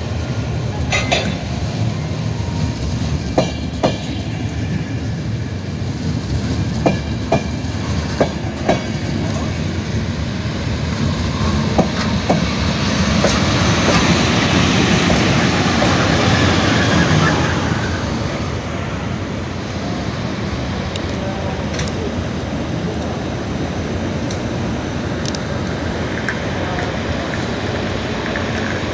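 A PKP Intercity EU07 electric locomotive rolling slowly past during shunting. Its wheels click sharply over rail joints and points in the first half, and the rumble grows louder for several seconds as the locomotive passes close by, then eases off.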